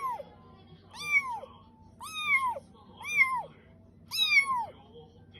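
A tiny kitten meowing over and over, high thin calls about one a second, each rising briefly and then falling in pitch.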